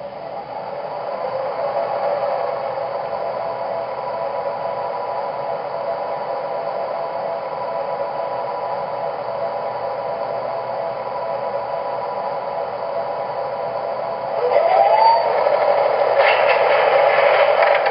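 ProtoSound 2.0 sound system of an MTH Railking O-gauge R-17 subway model playing its standing-train sounds: a steady electric hum with several held tones that grows over the first two seconds. A rising whine comes about fourteen seconds in, and a louder rattling clatter follows near the end.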